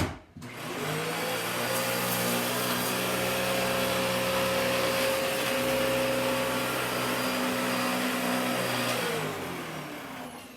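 Dyson DC14 Animal upright vacuum cleaner switched on with a click, its motor spinning up to a steady hum with a rush of air. It runs for about eight seconds, then is switched off and winds down with a falling pitch near the end.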